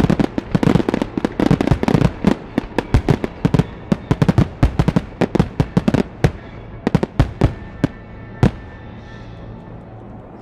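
Aerial fireworks shells going off in a rapid barrage of bangs and crackles, the closing barrage of the show. The barrage thins out after about six seconds to scattered single bangs, the last one about two seconds before the end.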